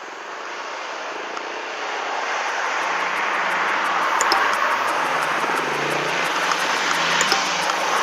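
Motor scooter being ridden: a steady rush of wind noise with the engine's low hum underneath, swelling over the first few seconds and the hum coming in about three seconds in.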